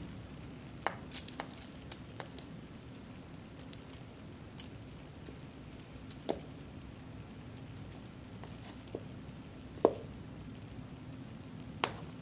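A metal spoon turning roasted potato wedges on a foil-lined baking tray: scattered soft taps and scrapes of the spoon against the potatoes, foil and tray, the loudest a little before the end. A faint steady hum runs underneath.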